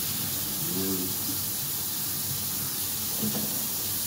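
Kitchen tap running into the sink while dishes are washed under it: a steady hiss of flowing water.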